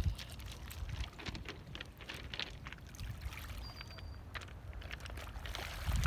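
Small waves lapping and washing over a pebble shore, with scattered clicks of stones and a low wind rumble on the microphone.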